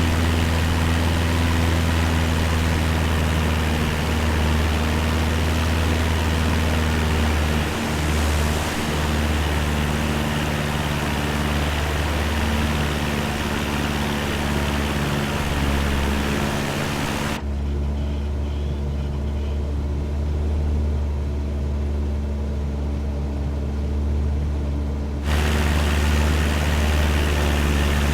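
Cessna 172 light aircraft's piston engine and propeller droning steadily in cruise flight. The higher hiss drops away for several seconds past the middle, leaving the low drone, then returns.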